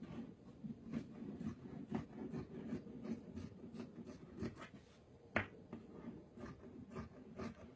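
Scissors cutting through fabric: a run of faint, irregular snips with the rustle of cloth, one sharper click a little past five seconds in.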